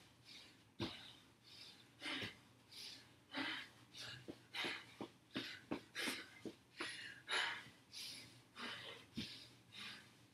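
A woman breathing hard in short, rhythmic puffs while doing jump squats and high knees, with a few sharp thuds as she lands.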